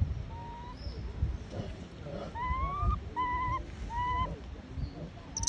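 Infant rhesus macaque giving about four short, high-pitched whimpering cries while held down by its mother, some rising at the end, over a low rumble.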